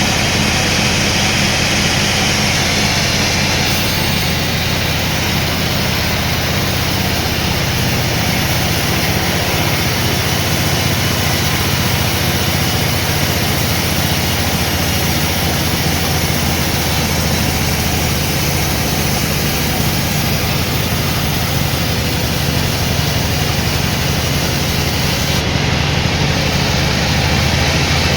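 Sawmill machinery running steadily: an engine with an even low hum under a dense mechanical noise.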